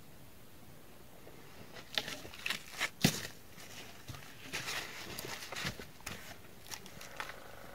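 Dry wooden poles and branches being handled: irregular knocks and snaps, the sharpest about three seconds in, followed by lighter crackling and rustling as a long pole is lifted and moved through brush.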